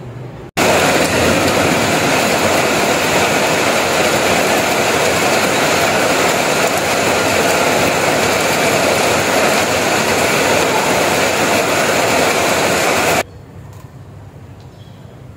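Heavy rain falling on a corrugated metal roof: a loud, even hiss that starts suddenly about half a second in and cuts off abruptly near the end.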